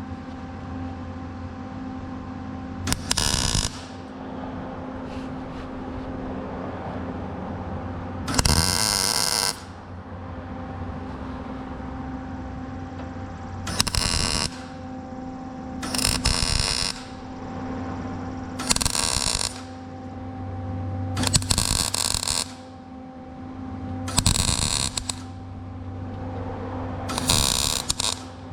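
MIG welder laying short tack welds on sheet steel: eight brief crackling bursts, each about half a second to a second long, with the welder's steady hum between them.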